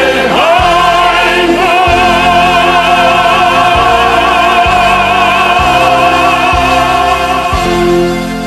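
Closing bars of a song: one long sung note held with vibrato over sustained band chords, with a low beat about once a second. The music begins to fade near the end.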